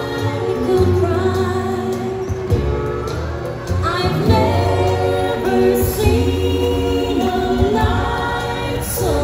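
Recorded song with a woman's singing voice over a band accompaniment, played back through the animatronic stage show's speakers.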